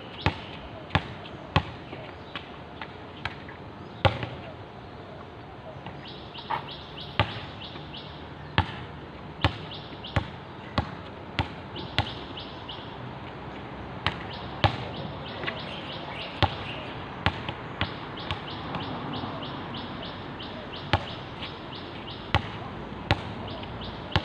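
Basketball dribbled on an outdoor hard court: sharp bounces at an uneven pace, often about one a second, with gaps between runs. A fast, high chirping repeats in the background through much of the middle and the end.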